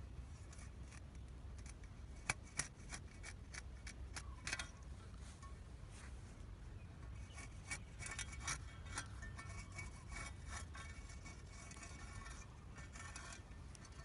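A small metal spade scraping and cutting into dry dirt: a run of sharp scrapes and clicks, sparse at first and denser from about halfway.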